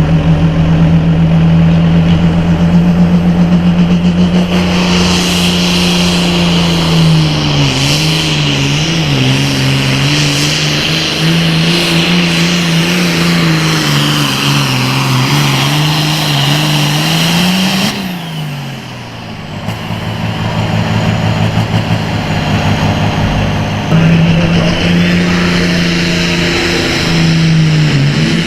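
Super farm class John Deere pulling tractor's diesel engine running hard at high revs under load, its pitch wavering up and down as it pulls. About two-thirds of the way through it drops off sharply, then climbs back to full revs and holds.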